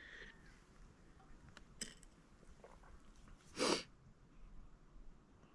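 A person sneezing once, a short loud burst about three and a half seconds in, with a faint click a little before.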